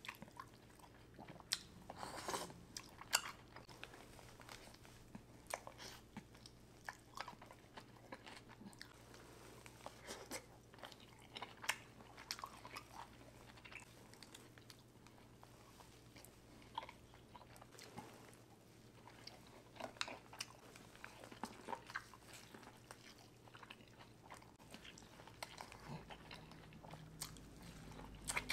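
Close-miked eating of a seafood boil: wet chewing, lip smacks and crunches, heard as irregular sharp clicks and crackles.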